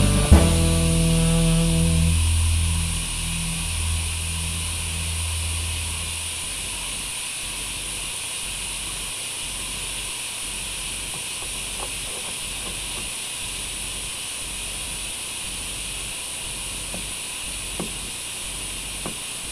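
Background music fading out over the first few seconds, then a steady high hiss with a few faint clicks near the end.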